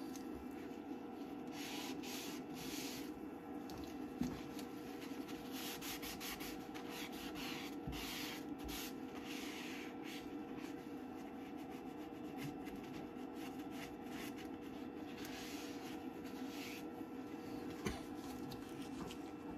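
A paper kitchen towel dampened with IPA is rubbed over the casing of an Elegoo Mars 2 Pro resin 3D printer to wipe off resin drips. It makes a run of soft scrubbing swishes in repeated strokes with short pauses.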